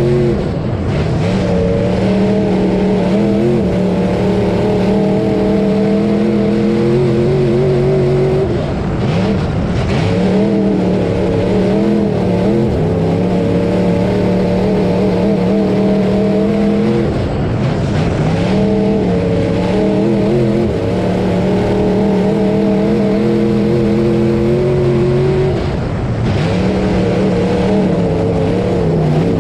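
Dirt-track hotmod race car's engine heard from inside the cockpit at racing speed. It holds a steady high note, then dips briefly and climbs back about every eight or nine seconds, four times, as the throttle lifts for the corners on each lap.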